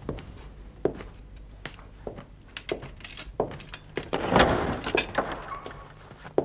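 Footsteps of several people on a hard floor as uneven knocks, and about four seconds in a louder rush of noise as a heavy door is opened.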